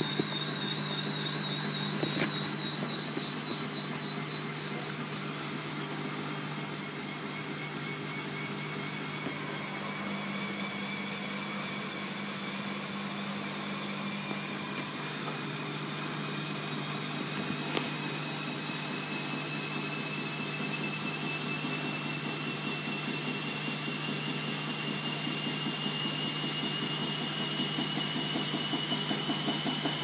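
Bosch WFF2000 washing machine spinning up: the drum motor's whine climbs slowly and steadily in pitch over a steady low hum as the drum gathers speed. The load of towels is out of balance.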